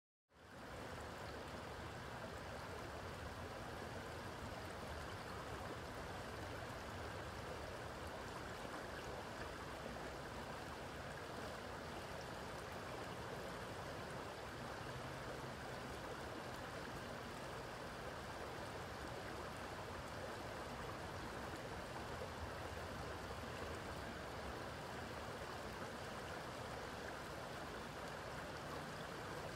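Small stream flowing steadily, a constant rush of water that fades in at the very start.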